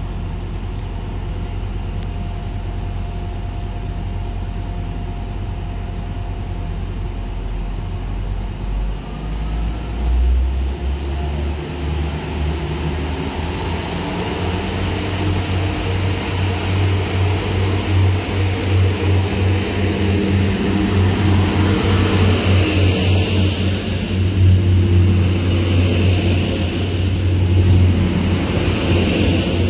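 Transport for Wales Class 175 diesel multiple unit coming along the platform, its underfloor diesel engines running with a deep throb. About ten seconds in the engine note steps up. The sound then grows louder as the train draws alongside, and a thin high whine rises in and holds.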